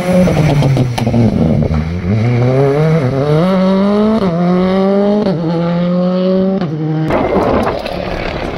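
Rally car engine passing at speed. Its pitch falls as it brakes and slows over the first two seconds, then it accelerates hard, the note climbing through four quick upshifts, each a short dip in pitch. Near the end the engine note gives way to a rough rushing noise.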